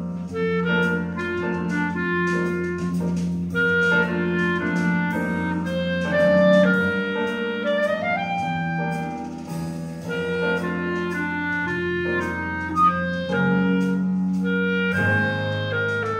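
Clarinet playing a Christmas tune, a melody of short and held notes with a rising run about halfway through, over held low accompaniment chords.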